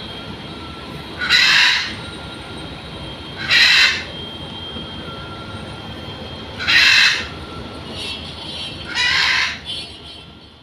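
Kobelco SK200 hydraulic excavator's diesel engine running steadily as it digs, with four loud, harsh half-second screeches two to three seconds apart. The sound fades out near the end.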